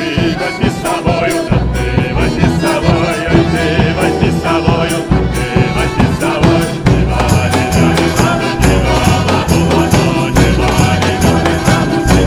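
Mixed folk choir singing with instrumental accompaniment, percussion keeping a quick, steady beat.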